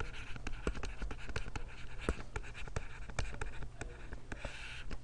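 A stylus writing by hand on a tablet: a quick, uneven run of light taps and short scratchy strokes.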